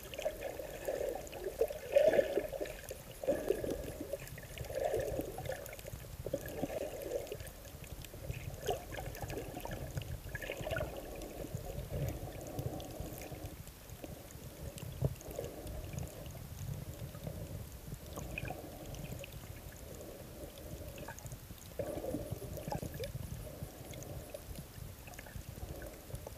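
Muffled water sloshing and gurgling, heard through a camera held underwater, rising and falling in uneven surges every second or two.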